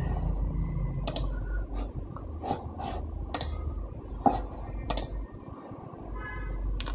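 Computer mouse clicking: about eight short, sharp clicks at uneven intervals over a steady low hum.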